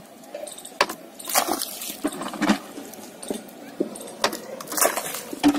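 Wet clay slurry being scooped and slopped with a metal pan: a string of irregular wet slaps and splashes.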